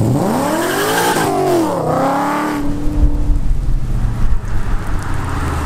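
A car engine revving as the car accelerates hard: its pitch climbs, drops back about two seconds in as at a gear change, climbs again, then settles. A deep, loud engine rumble follows.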